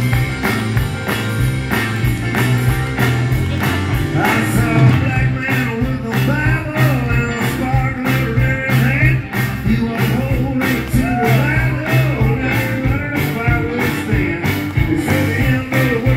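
Live rock band playing loudly: electric guitars over a steady drum beat.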